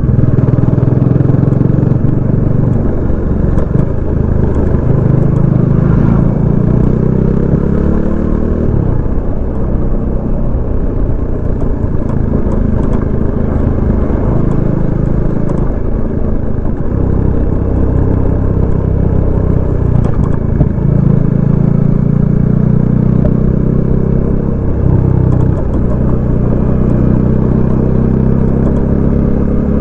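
Kawasaki Dominar 400 UG single-cylinder engine through its stock exhaust, heard from the rider's seat while riding. The revs climb and drop several times, with a rising pull that breaks off about eight seconds in and again near twenty-five seconds.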